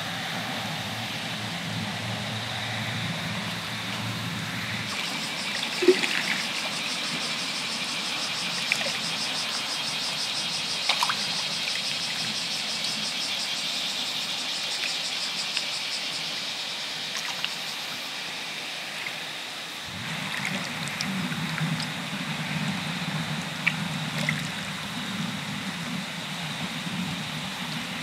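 Shallow water lapping and trickling over a wet rock at the edge of a tidal mudflat, a steady wash with a few small drips and ticks.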